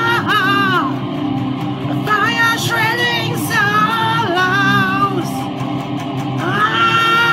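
Music: a song with a voice singing over instrumental backing, ending on a long held note.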